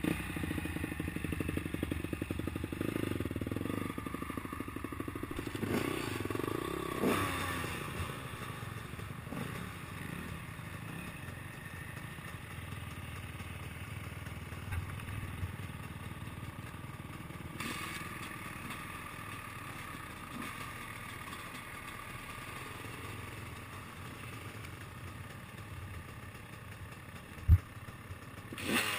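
Dirt bike engines running at idle, with a brief rise in revs about six to seven seconds in. A single sharp thump near the end is the loudest sound.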